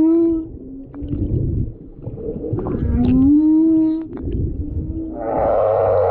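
Humpback whale song: a long rising moan in the middle, the tail of another just at the start, and a rougher, rasping call near the end.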